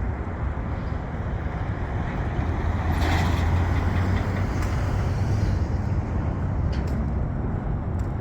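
Street traffic: a steady low engine rumble from road vehicles that swells about three seconds in as a vehicle passes.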